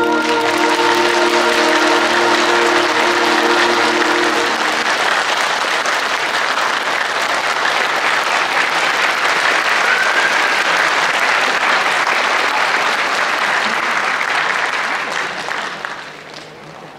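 Concert-hall audience applauding at the end of a concert band piece, with the band's last low chord still held under the clapping for the first five seconds or so. The applause then carries on alone and dies away about fifteen seconds in.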